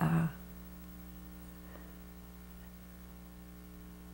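Low, steady electrical mains hum on the recording, with one brief spoken syllable at the very start.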